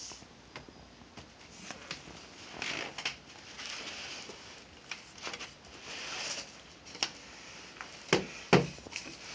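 Light taps and scratchy rustles of a baby's hands patting and rubbing a woven rush chair seat, with two louder thumps about half a second apart near the end.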